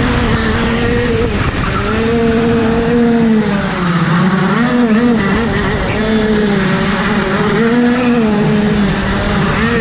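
Racing kart's two-stroke engine at high revs, heard from on board. Its pitch sags as the kart lifts off for tight corners, most deeply about four seconds in and again a few times later, then climbs back as it accelerates.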